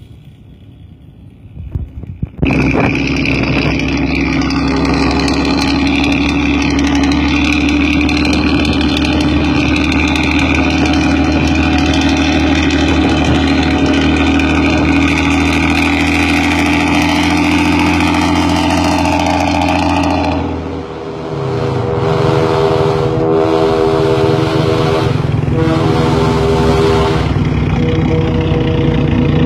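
Intercity bus's diesel engine running through a loud aftermarket exhaust with a deep growl ('ngorok'), starting about two seconds in and holding steady. After about twenty seconds the sound changes: the engine keeps running under a pitched, multi-note sound that breaks off every second or two.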